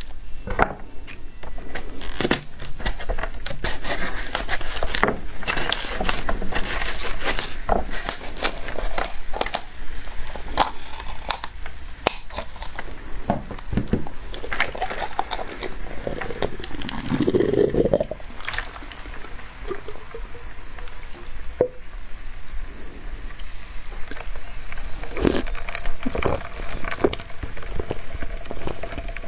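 Frozen plastic cola bottle being squeezed and kneaded: the plastic crackles and the icy cola slush inside crunches in many sharp clicks, with melted cola splashing and dripping into a plastic tray. Near the end, slurping of the slush from the bottle's mouth.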